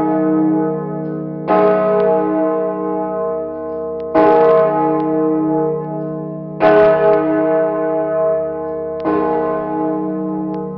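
Large bronze church bell swinging, its clapper striking four times at an even pace of about one stroke every two and a half seconds. Each stroke rings on with a long, slowly fading hum that carries under the next, heard close up in the belfry.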